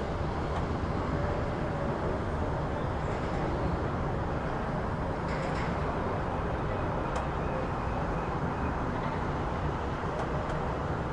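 City street ambience: a steady rumble of road traffic with a few faint clicks.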